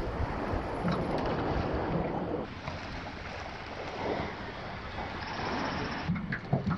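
Wind buffeting the microphone over water lapping, a steady rushing noise that eases slightly a little over two seconds in, with a few low thumps near the end.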